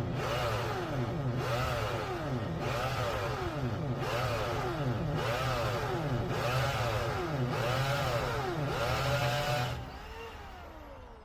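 Hammer drill with a 1/4-inch bit boring a pilot hole into concrete block, run slowly. Its whine rises and falls in pitch about once a second, then it stops near the end and winds down.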